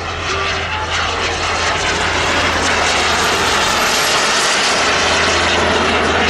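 Turbine engines of two model F-100 Super Sabre jets in flight: a loud, steady rushing jet noise that swells about a second in, with a thin high whistle slowly falling in pitch.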